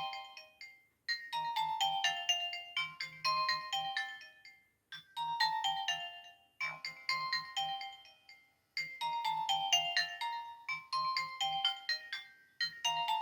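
Nokia 1280 mobile phone ringtone: a short melody of quick electronic beeping notes, repeating about four times with a brief pause between repeats.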